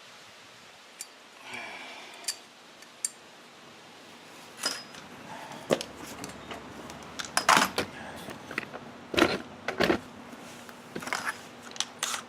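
Metal clinks, clicks and knocks of engine parts and screws being handled and fitted, sparse at first and coming thick and fast in the second half.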